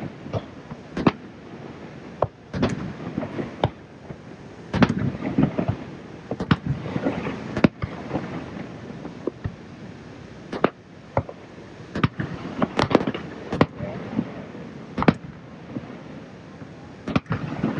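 Aerial fireworks display: a rapid, irregular series of sharp bangs from shell bursts, sometimes several within a second, over a steady background hiss.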